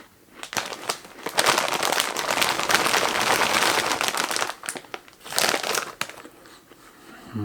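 Snack packaging crinkling as it is handled: a dense rustle lasting about three seconds from just after a second in, then a shorter crinkle near five and a half seconds.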